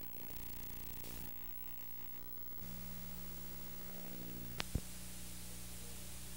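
Analog videotape static: an even hiss with a steady low hum, as the recording breaks up into colour bars and snow. Two sharp clicks come about four and a half seconds in.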